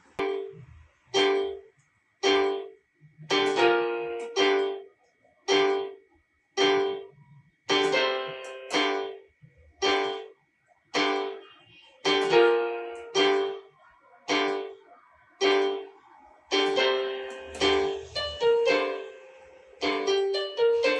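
Instrumental music: a piano-like keyboard plays chords about once a second, each ringing out and fading, with quicker notes near the end.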